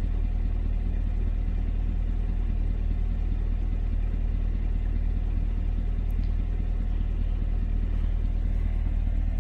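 2021 Chevrolet C8 Corvette's 6.2-litre LT2 V8 with the factory performance exhaust idling steadily in Tour mode, its exhaust valves closed.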